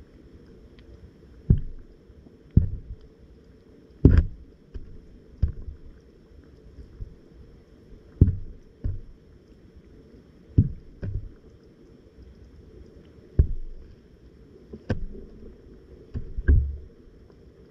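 Muffled water noise heard from a camera submerged underwater, with about a dozen irregular dull knocks and bumps on or near the camera every second or two.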